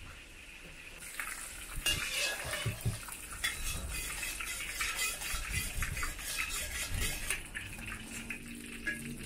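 Metal spatula scraping and clinking against the inside of a steel wok, spreading a spoonful of vegetable oil around the pan, in a run of quick irregular strokes that starts about two seconds in.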